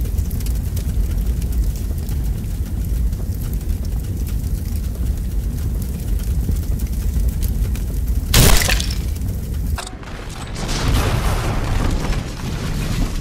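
Film sound effects: a deep, continuous rumbling boom, with a sudden loud crash about eight seconds in and a second, longer noisy burst near the end.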